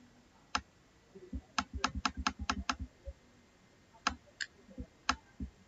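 Quiet clicks of computer keys as the document is scrolled: one click, then a quick run of about seven a little over a second in, then a few scattered clicks.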